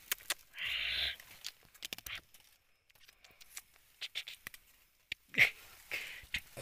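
A cornered palm civet hissing: one longer hiss about half a second in, then a sharp one past five seconds and a shorter one just before the end. Dry leaves rustle and crackle in between.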